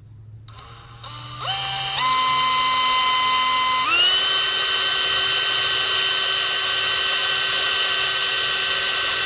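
Electric drill with a small bit drilling into a power steering gearbox's input shaft seal to make pry holes. The motor whine steps up in speed a few times in the first four seconds, then holds steady at a high pitch.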